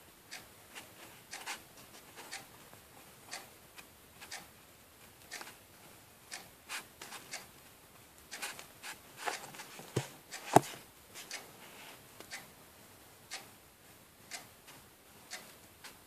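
Paintbrush dabbing and scraping across a plastic CD: a string of light, irregular taps and clicks, one or two a second, with one sharper knock about ten and a half seconds in.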